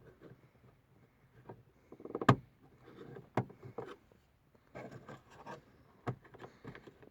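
Sharp plastic clicks and knocks of a car dome light's plastic lens cover being pried and handled with a screwdriver, the loudest snap a little over two seconds in.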